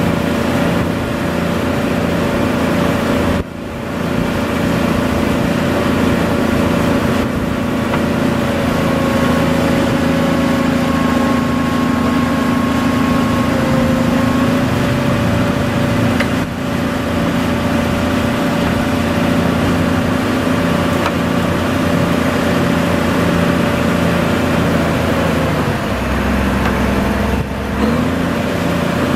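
Cummins L10 diesel engine of a 1990 Champion 740A motor grader running steadily while the hydraulics move the blade. Its pitch sags briefly a few times under the hydraulic load and rises again near the end.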